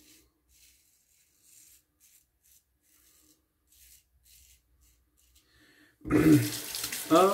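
Faint, short scraping strokes of a GEM single-edge safety razor cutting through lathered stubble. About six seconds in, a tap is turned on and water runs loudly into the sink.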